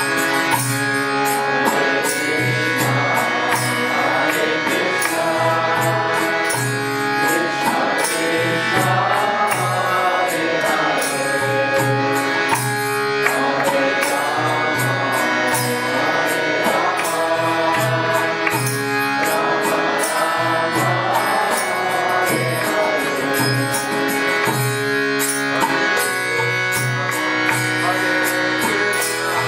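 A devotional bhajan: a man's voice singing a chant over held instrumental chords, with a regular beat of small cymbals and a drum.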